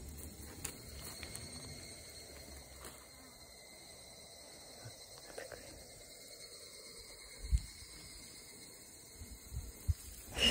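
Faint, steady high-pitched insect chirring outdoors, with a few soft low thumps.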